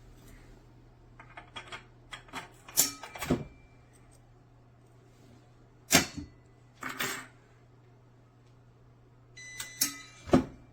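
A series of sharp clicks and knocks, with the loudest about three seconds in, about six seconds in and near the end. A brief steady tone sounds just before the last knock. A low, steady electrical hum runs underneath.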